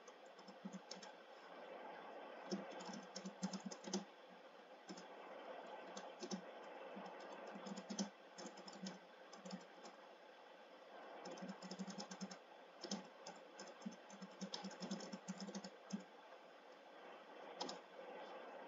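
Faint typing on a computer keyboard: quick runs of keystrokes broken by short pauses, as a command is typed out.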